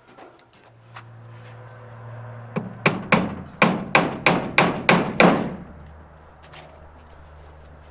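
A hammer striking the wooden trim at a barn's roof edge: about ten sharp blows in quick succession, roughly three a second, the last one the loudest.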